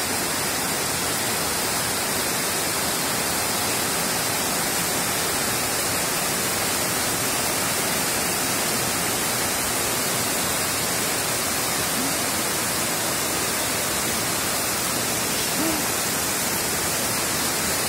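Torrential rain pouring down in a steady, dense hiss: a very heavy downpour, "as if from a bucket".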